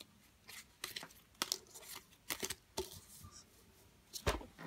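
Trading cards being handled on a wooden table: a string of short rustles and flicks as cards slide off a held stack and are set down on a pile, with a louder thump about four seconds in.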